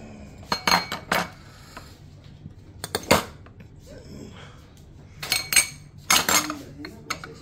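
Stainless-steel domed lids clinking against their metal serving bowls as they are lifted off and handled: sharp metallic clinks in small clusters about a second in, around three seconds and again between five and six and a half seconds, one with a short ring.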